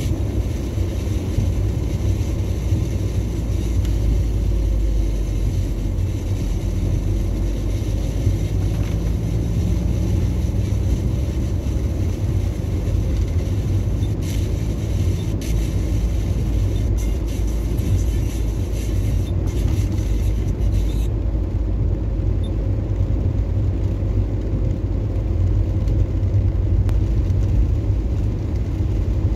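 Steady low rumble of a car driving on wet roads in the rain, heard from inside the cabin: tyre, road and engine noise.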